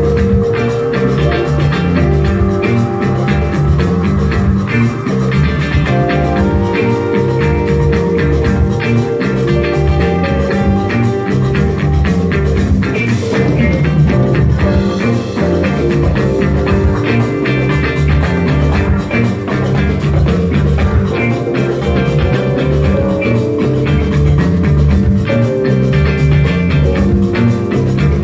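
Live rock band playing a loud, steady groove: electric guitars with held lead notes over a drum kit.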